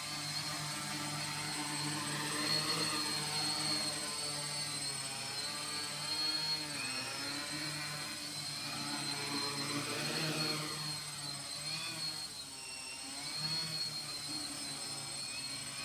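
Tarot 680 multicopter's electric motors and propellers whirring in a hover, their pitch rising and falling again and again over a steady high whine. The motors keep speeding up and slowing down to hold it level as it flies in manual mode, where it has stability problems.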